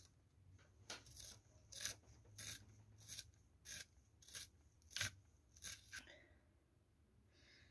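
Pink coloured pencil being twisted in a small plastic manual pencil sharpener: a faint run of about ten short scraping strokes, one every half second or so, stopping about six seconds in.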